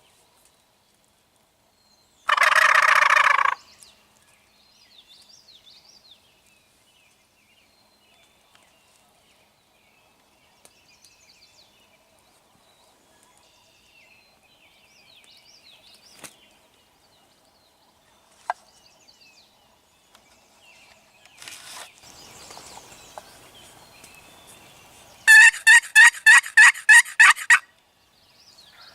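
Wild turkey gobbling loudly once, a little over two seconds in. Near the end comes a loud run of about ten evenly spaced turkey yelps, about four a second, after some rustling. Faint bird chirps sound in between.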